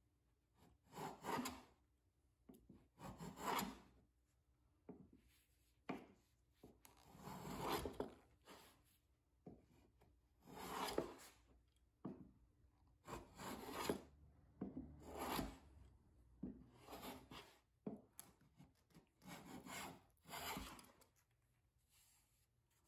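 Hand plane shaving the edge of a laminated hardwood banjo neck blank: a series of rasping strokes, roughly one every one to two seconds, some short and some drawn out over a second or so.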